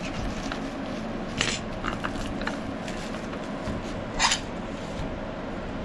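Clear plastic wrapping crinkling in a few short rustles as a hand file is pulled out of it by hand, the loudest about four seconds in, over a steady background hum.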